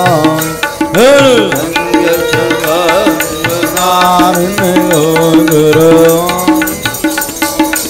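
Sikh kirtan: harmoniums playing held chords and melody over a tabla beat, with a voice singing long, drawn-out notes that arch up and down in pitch about a second in.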